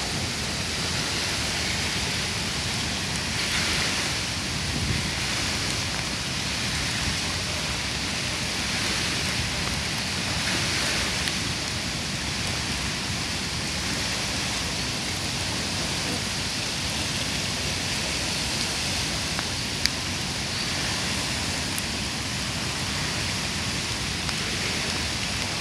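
The Lech in flood: fast, swollen brown water rushing past the bank and spilling over the river's weir, a steady rushing noise that swells briefly a couple of times.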